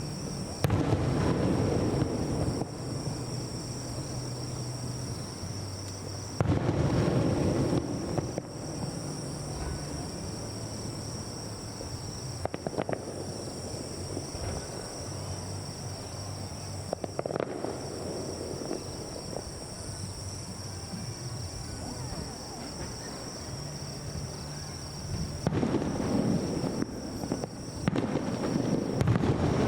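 Aerial fireworks shells bursting with deep booms every few seconds, thickening into a rapid run of bursts near the end. Low music plays underneath, with a steady high insect chirring.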